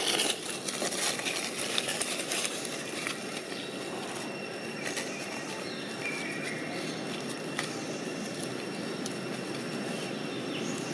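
Steady outdoor background noise with a few thin high steady tones above it, and brief crackles in the first couple of seconds.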